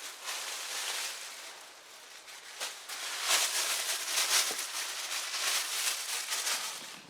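Dry rustling and crackling as harvested Tropicana Longa onions with papery skins and dried tops are handled for weighing. It gets louder from about three seconds in.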